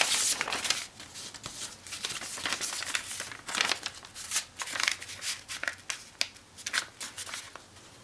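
Sheet of origami paper rustling and crinkling as it is folded and a crease is pressed flat, with irregular short scrapes of fingers or nails running along the fold.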